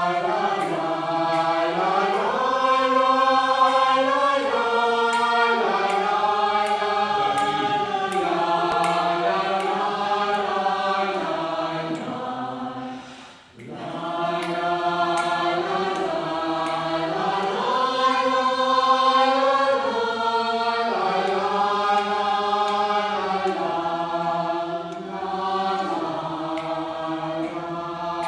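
A group of adults singing together as a choir, holding long sustained notes in two phrases. There is a short break for breath about halfway through.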